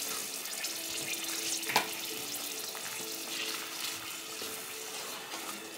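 Salted water and toasted rice bubbling at a rolling boil in a metal pot, stirred with a wooden spoon, with one sharp tap about two seconds in.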